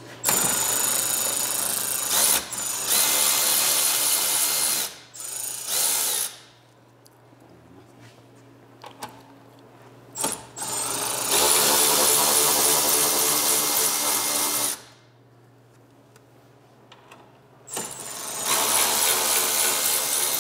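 Milwaukee cordless ratchet with a 10 mm socket whirring as it runs out bolts, in several runs of a few seconds each with short pauses between.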